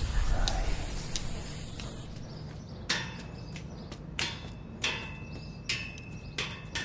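Aerosol spray-paint can hissing, stopping about two seconds in. From about three seconds in, a blind man's walking cane taps on pavement in a steady series, about one tap every two-thirds of a second, with a couple of taps ringing briefly.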